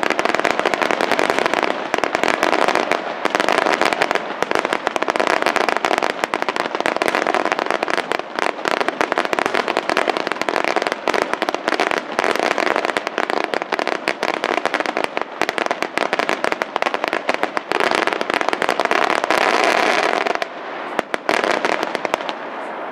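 Aerial firework shells bursting in a fast, dense run of loud bangs and crackling reports. About twenty seconds in the barrage stops, leaving a few scattered reports.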